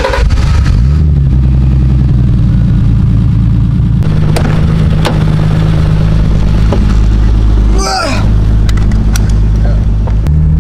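Turbocharged BMW M20B25 2.5-litre straight-six idling steadily just after being started, left to warm up, with a brief dip about eight seconds in.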